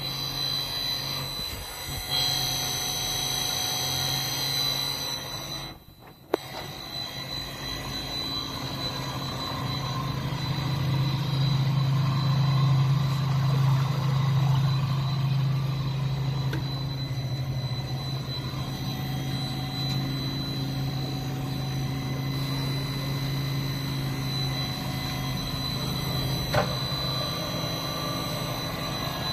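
Electric motors of the machine's supply pump and tank agitator running steadily during a test run, a low steady hum with a faint high whine over it. The sound drops away briefly with a click about six seconds in, then runs on slightly louder.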